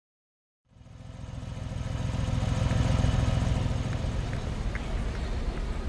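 Car engine running, starting out of silence about a second in and growing louder, then easing slightly.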